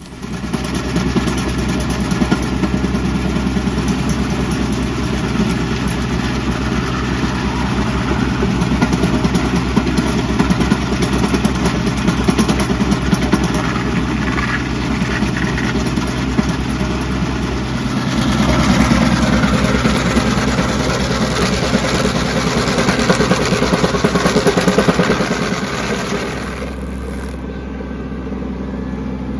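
Kubota B2650 tractor's diesel engine running steadily under load while its PTO-driven Woods stump grinder chews into a pine stump, a dense grinding noise over the engine. The grinding drops away near the end, leaving the engine running on its own.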